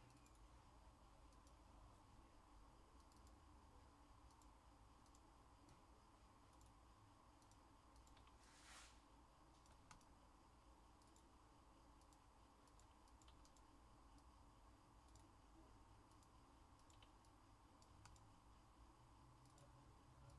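Near silence with a low hum and faint, scattered clicks of a computer keyboard and mouse. A brief soft rustle comes a little under nine seconds in.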